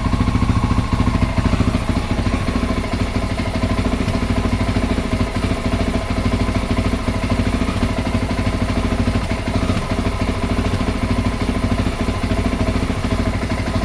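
Honda XR650L's air-cooled single-cylinder four-stroke engine idling roughly, with an uneven, spitting stutter in its firing.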